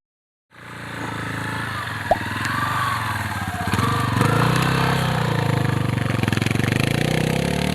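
Motorcycle engine running steadily while the bike is ridden, its pitch drifting slowly up and down. The sound starts about half a second in, after a moment of silence.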